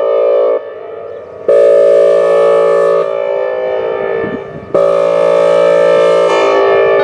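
Whelen Vortex R4 electronic warning siren sounding its air horn signal: a loud, steady horn chord in blasts about a second and a half long, repeating about every three seconds. Each blast is followed by a fainter tail of the same chord.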